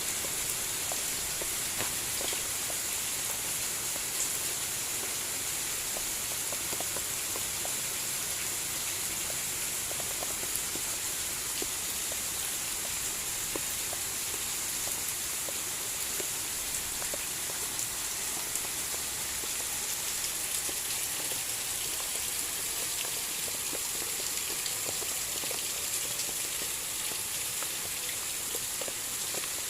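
Heavy rain falling steadily, a dense hiss of rain with many individual drop hits ticking through it.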